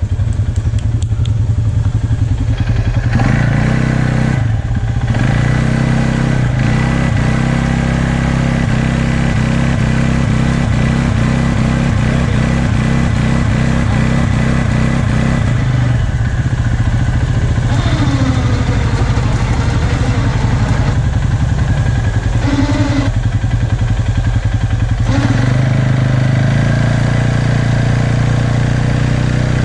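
ATV engine running, its revs rising and dropping several times with steady stretches in between.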